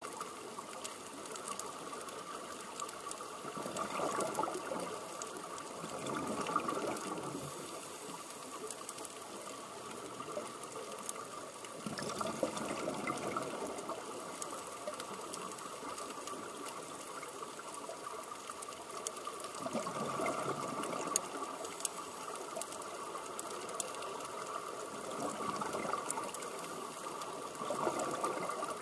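Scuba regulators underwater: divers' exhaled air bubbling out in surges every few seconds over a steady hiss.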